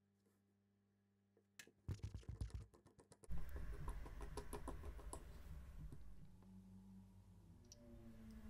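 Light clicks and taps of a watch case being handled in a Bergeon bench press, a quick cluster about two to three seconds in. Then a low steady hum with a few faint clicks.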